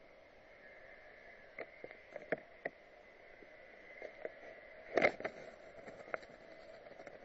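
A few light clicks and taps, a tabby cat bumping against the camera with its face, with one louder knock about five seconds in, over a faint steady hum.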